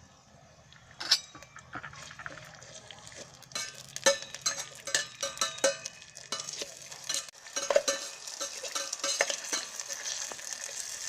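A spoon stirring onions frying in oil in an electric kettle, with many small knocks and scrapes of the spoon against the pot. A sizzle builds from about three and a half seconds in.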